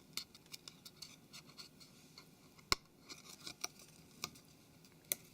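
Faint scratching and small clicks of a tool working on a phone's screen frame, clearing off leftover adhesive. There is one sharper click near the middle.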